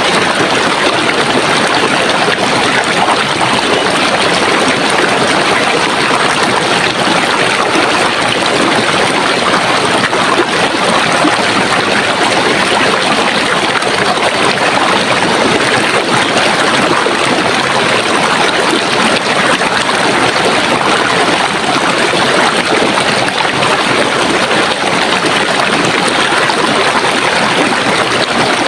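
Running water: a steady, loud rushing and gurgling flow that does not change.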